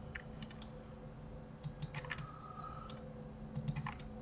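Computer keyboard keys and mouse buttons clicking in three short clusters of quick clicks, over a faint steady hum.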